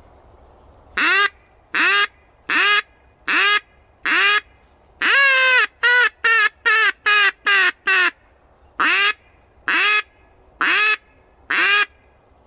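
Handheld duck call blown to imitate a hen mallard's quacking, to lure drakes. It gives five spaced quacks, then a longer drawn-out quack followed by a quick run of about six short ones, then four more spaced quacks.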